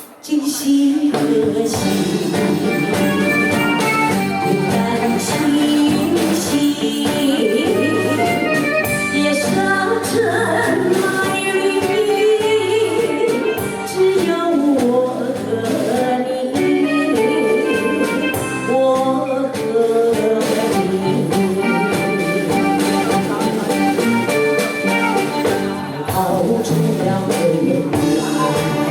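A woman singing a melodic song over instrumental accompaniment. The music starts right after a brief gap at the very beginning and then runs steadily.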